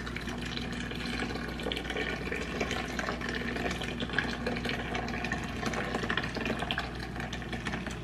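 Hot water from a gooseneck electric kettle pouring in a thin, steady stream into a clear blender jar of matcha mix, splashing as the jar fills.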